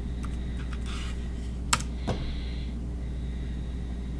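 A handful of separate key presses on a Logitech K380 compact Bluetooth keyboard, irregularly spaced, typing in a pairing code. A steady low hum runs underneath.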